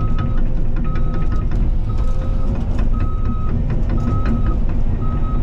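Cat 313 excavator's diesel engine running under a steady rumble, with its warning alarm beeping about once a second, each beep about half a second long, the travel alarm that sounds while the machine tracks. Irregular clicks and clanks sound over it.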